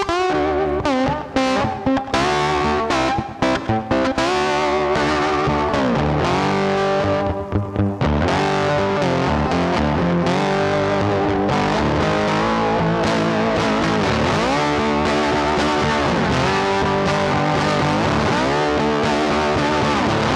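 Background music led by guitar, with notes sliding up and down.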